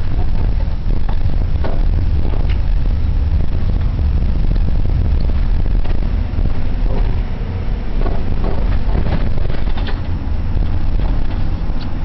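Steady low rumble of a car driving, engine and road noise heard from inside the cabin, with a few light knocks scattered through it.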